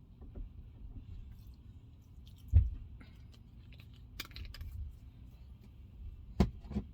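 Kitchen handling noises: scattered light clicks and rattles, with one loud knock about two and a half seconds in and two more knocks near the end.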